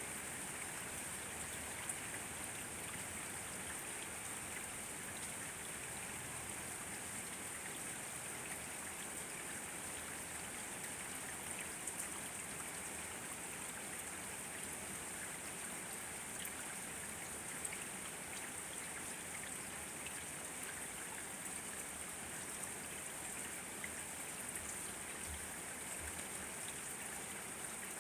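Steady rain falling: an even hiss with scattered louder individual drops ticking through it.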